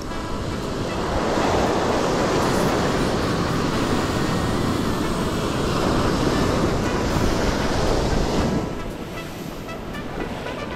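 Ocean surf washing up a sandy beach: a wave's wash swells about a second in, holds for several seconds, and falls away near the end.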